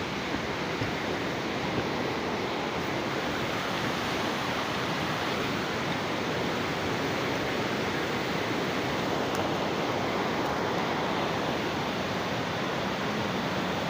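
Rushing water flowing steadily, an unbroken rush of noise.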